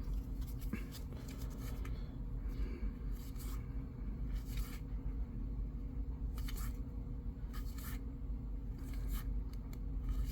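Trading cards being slid and flipped one at a time, a string of brief papery swishes at irregular intervals, over the steady low hum of a clothes dryer running.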